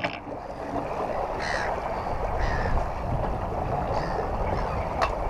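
Steady wind noise on the microphone and water rushing past a sailing yacht under way, with a single sharp click near the end.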